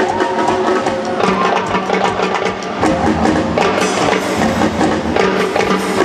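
Luk thung band music played live, with drum kit and horns over a steady beat.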